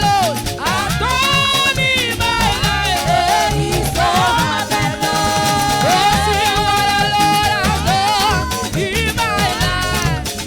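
Live upbeat African praise music: a choir singing over a band with a steady, driving beat.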